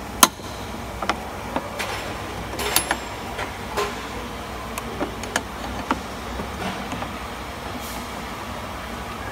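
A ring spanner clicking and tapping against the 10 mm bolts and metal latch plate of a Toyota Avanza's back-door striker as the bolts are loosened for adjustment. There is one sharp click about a quarter second in, then lighter clicks at irregular intervals, over a steady low hum.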